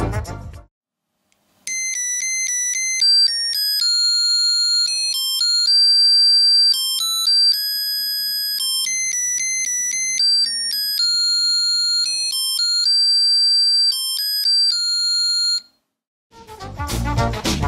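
A UM66T19L melody-generator IC driving a piezo buzzer plays a simple electronic tune of shrill, stepped beeping notes for about fourteen seconds, starting and stopping abruptly. Background swing music fades out in the first second and comes back near the end.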